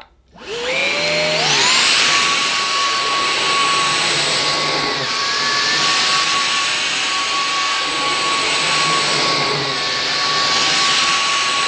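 Numatic Hetty Quick cordless stick vacuum switched on about half a second in, its motor spinning up with a rising whine, then running steadily on boost mode with the floor head's suction slide opened, the brush-roll head pushed over carpet.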